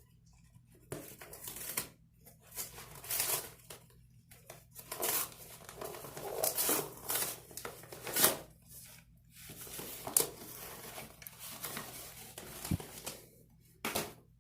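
A shipping package being opened by hand: irregular bursts of tearing and crinkling packaging, with a few sharper knocks.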